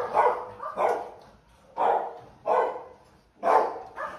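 St Bernard barking repeatedly at a man at its kennel door, about six deep barks spaced roughly a second apart or less.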